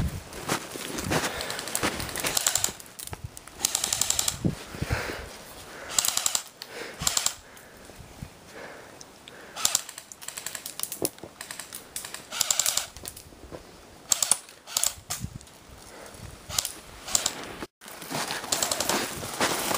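Airsoft guns firing in several fast bursts of rapid clicking shots, with short pauses between bursts.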